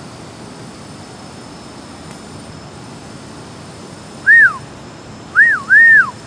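A person whistling close by: one short swooping note about four seconds in, then a two-note whistle near the end, each note rising and falling away, the second held longer. A steady low hum sits underneath.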